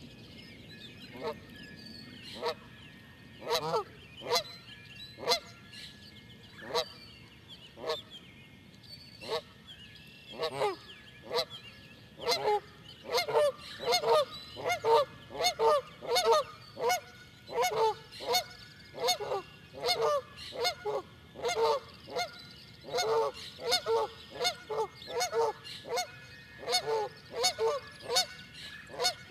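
Canada geese honking: scattered single honks at first, then from about twelve seconds in a rapid run of several honks a second.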